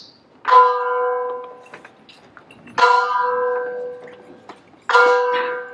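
A bell struck three times, about two seconds apart. Each stroke rings with a clear pitched tone and fades away: a memorial toll for the lodge's past masters.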